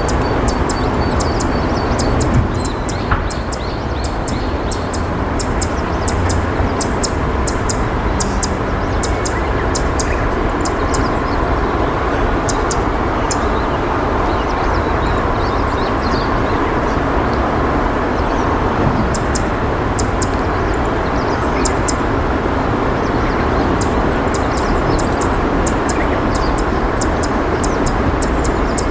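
Steady rushing of river water, with runs of rapid, high-pitched ticking chirps above it that thin out midway and return near the end.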